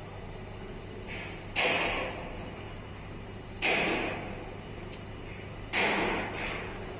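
Automatic large-panel sewing machine at work: three sudden loud bursts of noise about two seconds apart, each starting sharply and dying away within a second, over a steady low hum.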